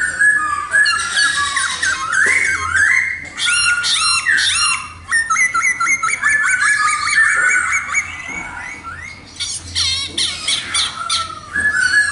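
Khướu mun laughingthrush singing a long, varied song of whistled phrases, rapid repeated notes and rising and falling glides, with a brief quieter stretch near the end.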